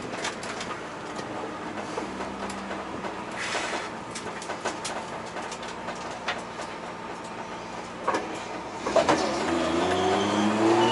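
Nissan R32 Skyline GTS-t track car heard from inside the stripped cabin: the engine runs at steady low revs with many sharp rattles and clicks from the interior, then revs up with a rising pitch in the last two seconds.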